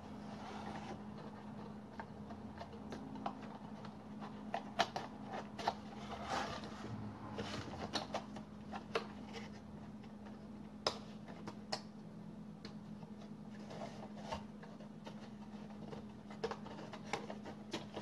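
Folded cardstock papercraft pieces being handled and fitted together: scattered sharp taps, clicks and soft rustles as a card roof's slots are pushed onto the model's walls.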